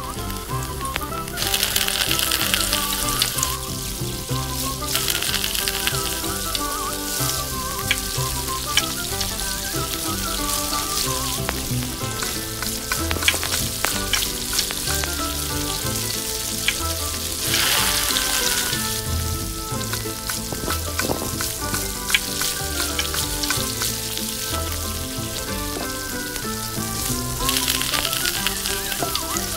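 Oil sizzling and frying in a miniature steel kadai as ingredients are stirred in with a tiny spoon, with a few light clicks. The sizzle swells about two seconds in, again past halfway, and near the end.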